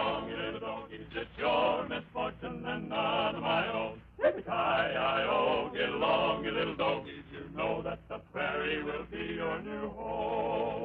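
Men singing with musical accompaniment, on an old narrow-band radio recording that sounds dull and muffled. A sharp click comes about four seconds in.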